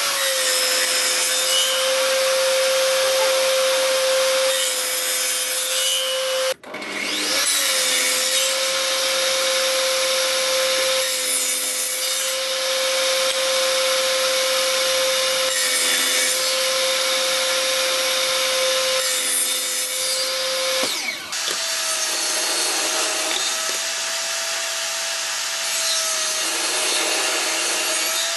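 Benchtop table saw running with a steady blade whine while cutting small pine pieces, the hiss of the cut rising and falling with each pass. The sound breaks off sharply about six seconds in and picks up again at once. After about twenty seconds the whine steps up a little in pitch.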